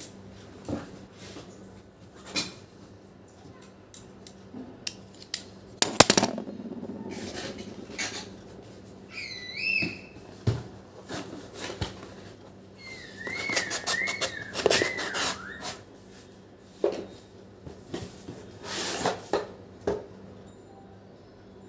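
Cardboard and plastic packaging being handled and opened, with scattered clicks and rustling. Twice, a short warbling whistle is heard.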